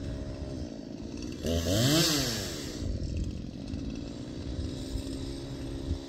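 Chainsaw revved once, rising to high speed about a second and a half in and dropping back after about a second, over a steady engine drone.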